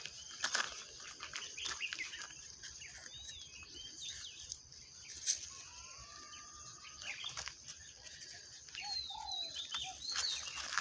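Birds chirping and calling in short rising and falling notes over a steady high hiss, with scattered short clicks.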